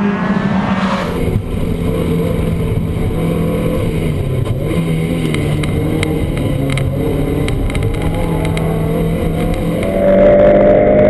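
Toyota MR2 Spyder's four-cylinder engine under load on track, heard from inside the cabin, its note rising and falling as the car accelerates and changes speed. About ten seconds in it gets louder, with a rising note.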